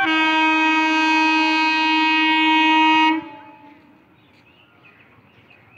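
Horn of an approaching Indian Railways MEMU electric train: one long, steady single-tone blast of about three seconds that then dies away.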